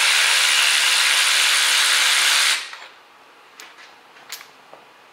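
A cordless electric ratchet runs steadily, spinning a loosened spark plug out of a Honda K24 cylinder head, and cuts off suddenly about two and a half seconds in. A few light clicks follow.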